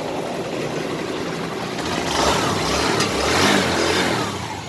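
TVS Star Sport motorcycle's single-cylinder four-stroke engine running, revved up about two seconds in and easing back down near the end. It runs with no tick: the 'tik tik' engine noise fault has been fixed.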